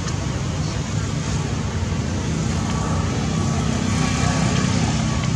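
Steady low background rumble with a faint hiss above it, unchanging, with no distinct events.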